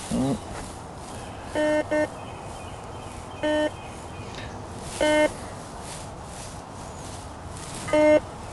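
Garrett GTI 2500 metal detector giving short, low, same-pitched beeps as the coil sweeps the ground: five in all at uneven spacing, two of them close together about 2 seconds in. These are scattered, jumpy target signals that the operator takes for buried trash. A brief low sound that glides in pitch comes right at the start.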